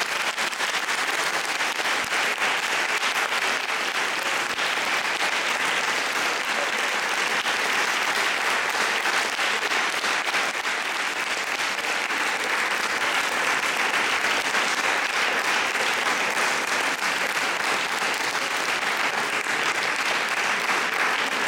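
An audience applauding, steady and unbroken.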